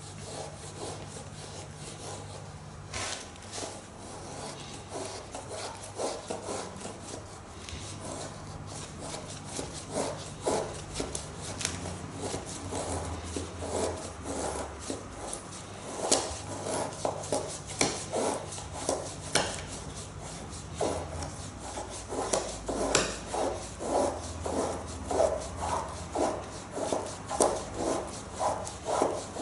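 Japanese nata hatchet's chisel-ground steel blade shaving curls down a wooden stick to make a feather stick: repeated scraping strokes of steel on wood, sparse at first, then coming steadily about one or two a second.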